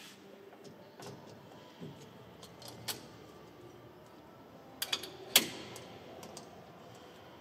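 Metal clicks and clinks of a drive shaft's universal-joint yoke being worked onto a splined shaft: a few light clicks, then a quick cluster of sharper clicks about five seconds in, the last one the loudest.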